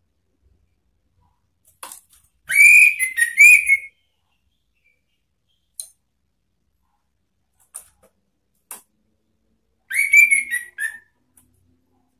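Orange-headed thrush whistling two loud call phrases, one about two and a half seconds in and one about ten seconds in, each a quick run of rising-and-falling whistled notes. This is the challenging whistle used as a lure to call out a rival. Faint short clicks come between the phrases.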